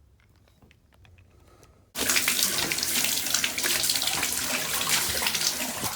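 A faucet turned on about two seconds in, water running hard with a steady hiss.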